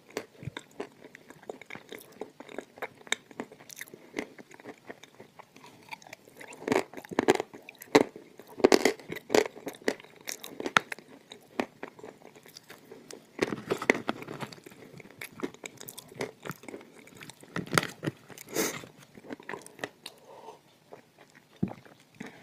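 Close-up mouth sounds of crunchy clay and chalk being bitten and chewed: sharp, irregular crunches that come in louder clusters in the middle of the stretch, with quieter chewing between them.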